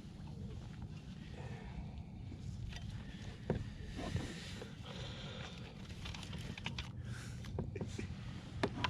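Faint handling noises, a few light knocks and clicks, over a low steady rumble.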